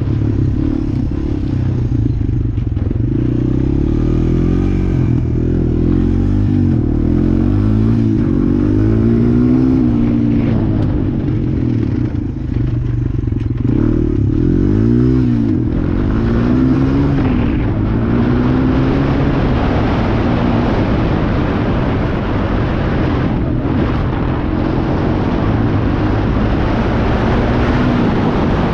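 Honda TRX 250EX quad's single-cylinder four-stroke engine running under way, its pitch rising and falling again and again as the throttle is worked. A broad rushing noise grows louder from about halfway through.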